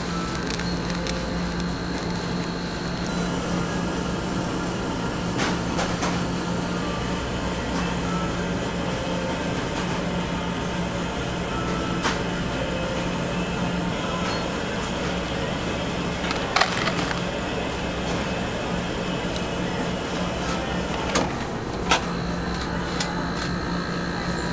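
Steady low machine hum and shop background noise, with a few short sharp clicks and taps.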